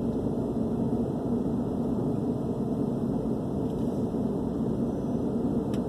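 Steady low rumble of a car, engine and road noise heard from inside the cabin.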